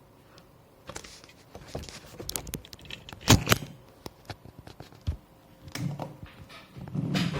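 Irregular clicks and knocks from handling a laptop and its keys, with one loud knock about three seconds in and duller thumps near the end.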